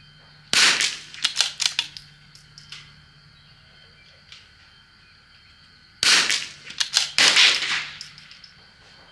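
Two shots from a CZ .22 LR rimfire target rifle firing subsonic Eley match ammunition, about five and a half seconds apart. Each shot is followed within a second or so by a quick run of sharper cracks.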